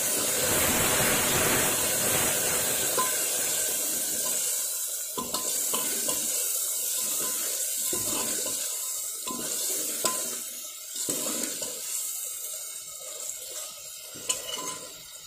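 Tomato-onion masala sizzling and bubbling in an aluminium pressure cooker just after a little water goes into the hot oil, with a steel ladle stirring through it. The sizzle is loudest at first and dies down over the following seconds.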